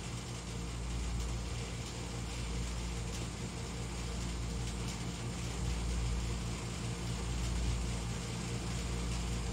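Steady low machine hum with a deep rumble under it, the background drone of a running fan or air conditioner.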